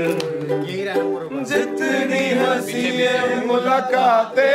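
Several men singing together in a group, with a ukulele strummed along.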